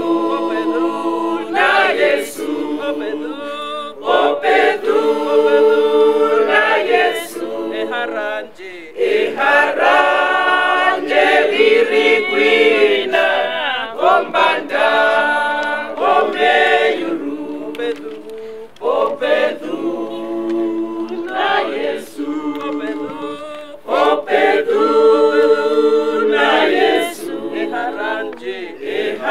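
A mixed choir of men and women singing unaccompanied, in long held phrases with short breaks between them.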